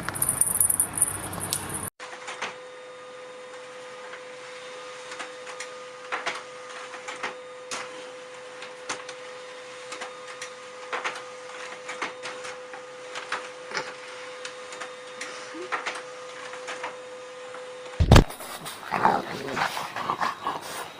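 A dog giving short whimpers and yips over a steady hum, with scattered clicks; the sound changes abruptly twice, and the calls are louder near the end.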